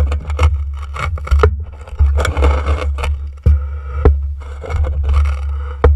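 Repeated scraping and irregular knocks, with a steady low hum underneath.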